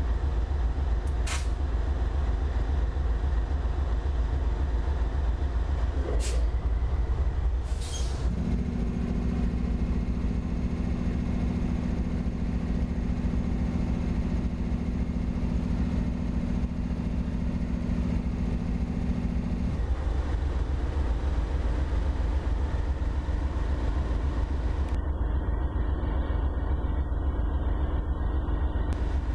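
GE diesel-electric freight locomotives running at close range with a deep, steady engine rumble. A steady two-note hum joins at about 8 seconds and stops at about 20 seconds. Three brief sharp sounds come in the first eight seconds.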